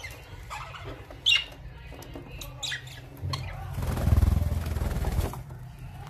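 Budgerigars chirping in short high calls, with one sharp loud call a little over a second in. From about three seconds in, a louder low rumbling noise runs for about two seconds.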